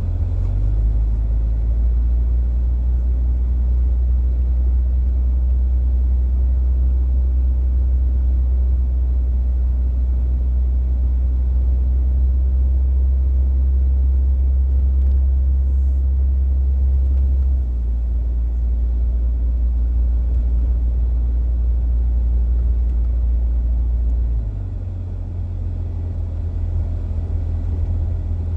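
Steady low rumble of a vehicle driving on snow-covered roads with four-wheel drive engaged, heard from inside the cabin; it eases a little about 18 seconds in and again near 25 seconds.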